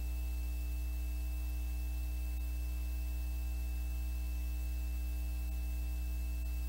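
Steady electrical mains hum with a faint thin high whine above it and nothing else, unchanging throughout.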